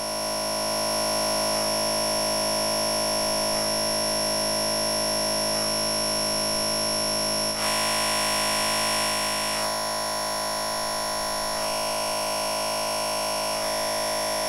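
Digital audio feedback loop in Ableton Live, a return track feeding back into itself: a sustained drone made of many steady high and mid tones, with a faint tick about every two seconds. It runs with the limiter bypassed, and its level rises slightly about a second in; around the middle it turns brighter for a couple of seconds, then settles again.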